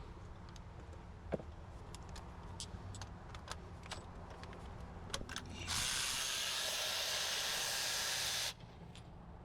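Light clicks and taps of hand tools, then, about six seconds in, a loud steady spraying hiss that lasts about three seconds and cuts off suddenly.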